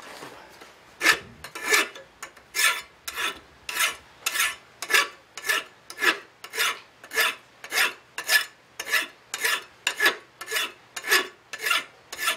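Flat hand file rasping across the edge of a horseshoe letter opener held in a vise, shaping the blade's edge. Even, regular strokes, nearly two a second, beginning about a second in.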